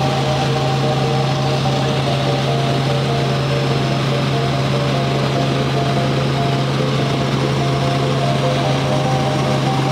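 Robinson R44 Raven I helicopter in flight, heard from inside the cabin: the six-cylinder Lycoming piston engine and rotors make a loud, steady drone with a constant low hum under a rushing noise.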